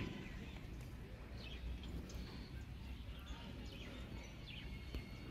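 Quiet outdoor background noise with a low steady rumble and a few faint, brief bird chirps.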